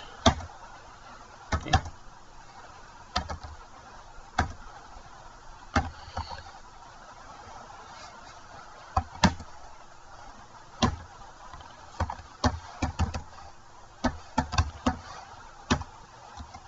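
Single computer keyboard keystrokes clicking at irregular intervals, sparse at first and then a quicker run of several keys, over a faint steady hum.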